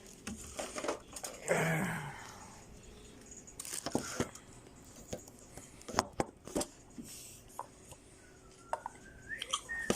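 Scattered light knocks and clicks of objects being handled and set down on a table, with a short rustle about one and a half seconds in.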